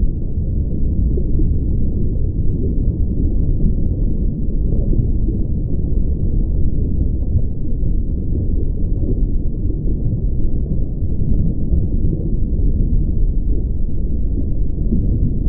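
Steady, loud low rumbling noise with no distinct sounds in it.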